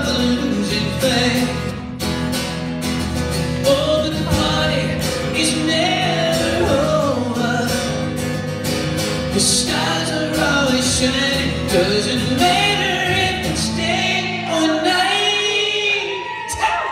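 Live male vocal with acoustic guitar accompaniment, the guitar strummed under a sung melody. The low guitar notes stop about three seconds before the end, leaving the voice over lighter sound.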